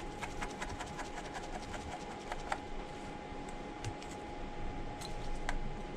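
Pentalobe screwdriver turning out the bottom screws of an iPhone 13 Pro Max: a run of light, quick clicks and scratches, thickest in the first couple of seconds, then a few scattered ticks, over a faint steady hum.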